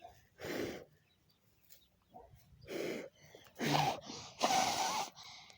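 A person blowing hard on smouldering campfire embers to revive the flame: a series of about five breathy puffs, the longest and loudest near the end.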